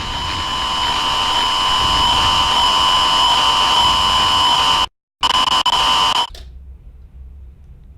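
A loud, steady electronic buzzing tone like an alarm, over a hiss of noise. It drops out for a moment about five seconds in, returns, then cuts off suddenly about a second later.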